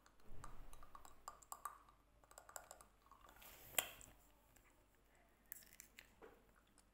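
Faint mouth sounds of a child sucking and biting a lollipop: soft wet smacks and small clicks of the candy against her teeth, with one sharper click a little past the middle.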